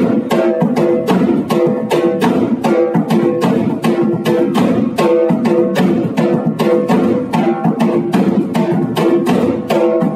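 Music led by a plucked string instrument over a fast, steady percussive beat.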